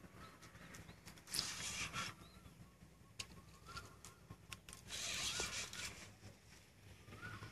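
Spinning reel whirring in two short bursts, about a second and a half in and again at about five seconds, as line is worked on a hooked fish, with faint bird calls between.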